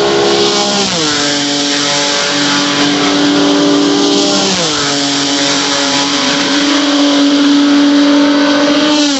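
1997 Benetton B197 Formula One car's 3.0-litre Renault V10 running at high revs, its pitch dropping sharply three times as it shifts gears and holding fairly level between shifts.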